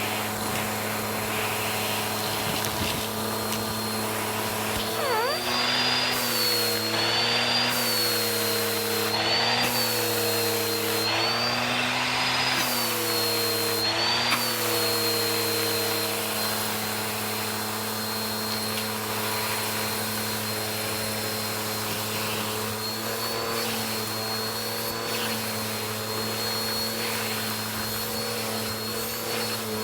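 Vacuum cleaner running steadily on carpet, picking up carpet freshener powder. Its motor pitch repeatedly dips and rises, about every second and a half, through much of the stretch.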